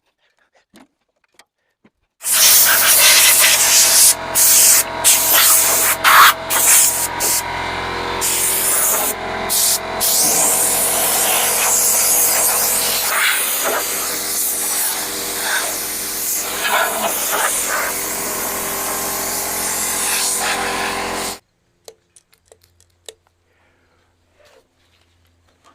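Portable bandsaw sawmill running under load, its engine holding a steady speed while the blade cuts through a white oak log, with a hiss of sawdust over it. The sound comes in suddenly about two seconds in and cuts off sharply a few seconds before the end.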